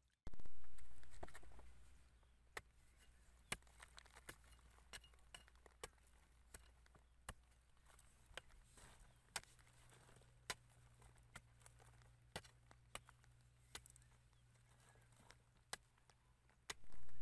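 Sharp crunching knocks of dry, cracked mud crust being broken up by feet and a hoe, roughly one a second, over a low steady hum. The loudest sound is a swell that dies away over about a second and a half, once just after the start and again near the end.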